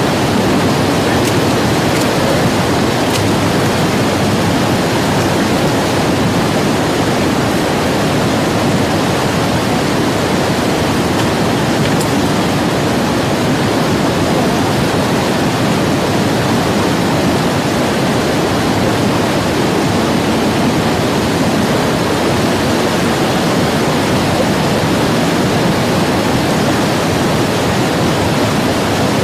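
River rapids rushing: a loud, steady wash of churning whitewater around an inflatable raft.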